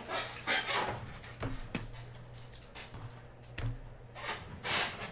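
Trading cards being handled on a table: soft rustling with a few sharp clicks, over a steady low hum.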